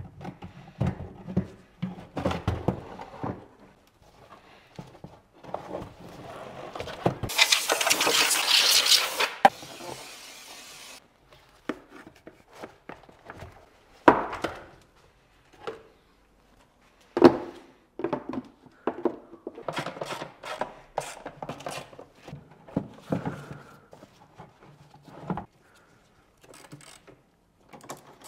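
Plastic air filter housing being handled on a workbench: scattered knocks, clunks and rubbing of hollow plastic against the bench. About a third of the way in comes a loud spraying hiss of about two seconds that fades off over the next second.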